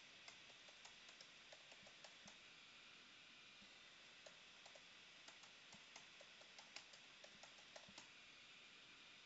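Faint typing on a computer keyboard: quick, irregular keystrokes, with a pause of about two seconds near the middle.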